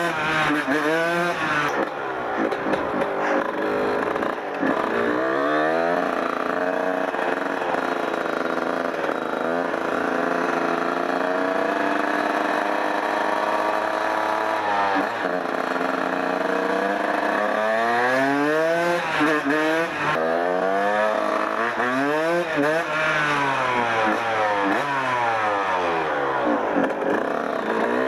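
1994 Kawasaki KX 125 single-cylinder two-stroke dirt bike engine under way, revving up and shifting, its pitch climbing and dropping again and again. In the middle it holds a steadier pitch for several seconds, then rises and falls in quick repeated sweeps near the end.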